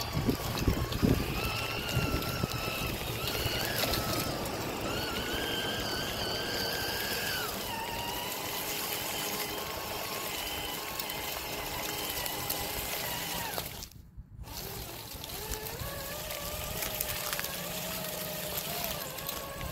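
Micro 1/24-scale RC crawler's small electric motor and gears whining, the pitch shifting up and down with throttle, with a brief drop-out about 14 seconds in.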